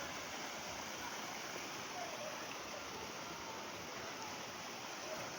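Waterfall water rushing in a steady, even noise that neither rises nor falls.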